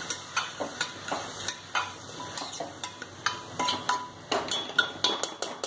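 A metal spoon stirring diced potatoes and cowpea bean pods with spices in a pressure cooker, making irregular scrapes and clicks against the pot, busiest near the end, over a faint sizzle of the cooking oil.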